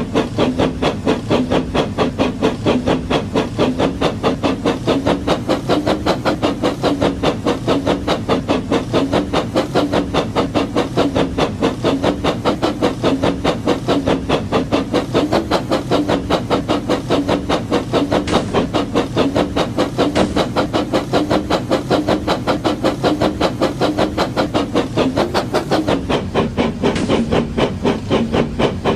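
Battery-powered brick toy train running, a rapid, even chuffing rhythm of several beats a second that goes on without a break.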